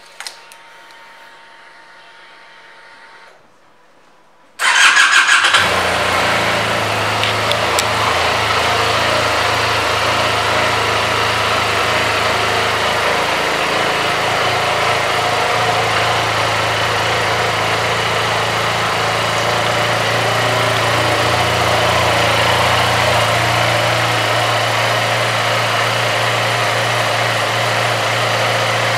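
2023 QJ Motor SRK 400's parallel-twin engine starting about four and a half seconds in, after a few seconds of faint hum. It catches at once and then idles steadily.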